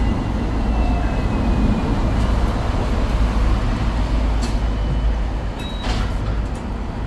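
Hong Kong double-decker tram heard from on board: a steady low rumble as the tram slows to a stop and stands there, with a faint whine falling in pitch over the first couple of seconds. A few sharp clicks and knocks come later.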